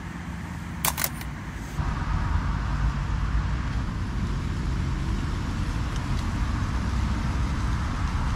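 Steady rumble of road traffic, with two sharp clicks about a second in.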